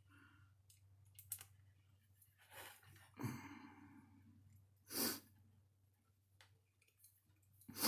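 Faint scattered clicks of small parts and tools being handled, with a few breathy exhales, over a low steady hum.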